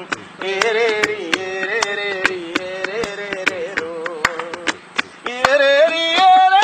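A man singing a Malayalam folk song (nadan pattu), kept in rhythm by sharp hand taps drummed on a motorcycle helmet. A louder voice comes in about five seconds in.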